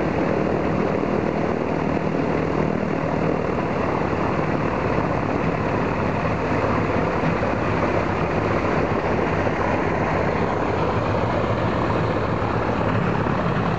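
Ilyushin Il-14's Shvetsov ASh-82T fourteen-cylinder radial engine idling steadily while warming up, its four-blade propeller turning.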